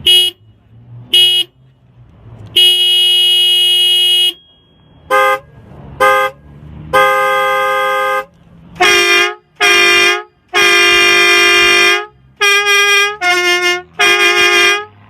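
A Nissan LEAF's stock steering-wheel horn and then its add-on air horns are sounded in turn. Each round is two short beeps and then a longer blast of one to two seconds. There are four such rounds, and the tone changes between them, the last rounds being the fullest.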